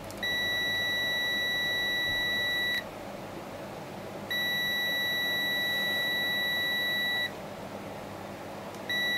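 A digital multimeter's continuity beeper sounds a steady high-pitched tone three times, in stretches of about two to three seconds with short breaks between. The probes are on the legs of a MOSFET, and the beep signals a short: the FET has failed into a dead short, 'a three-legged shorting link'.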